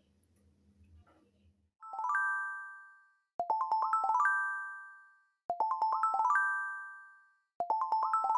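Cheerful intro jingle in bell-like chiming tones: a quick rising run of notes ending on a ringing note that fades away, repeated about every two seconds, starting nearly two seconds in.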